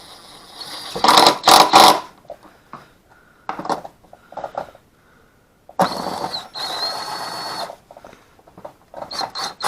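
Cordless impact tool running on a spark plug in short bursts: a brief burst about a second in, then a steady run of about two seconds with a high motor whine near the middle.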